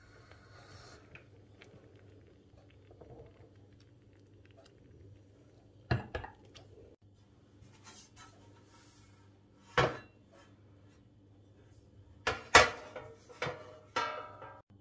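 Aluminium baking tray being handled and set down on a stovetop: a few separate sharp metallic clanks with a short ring, the loudest in a cluster near the end, over a faint low hum.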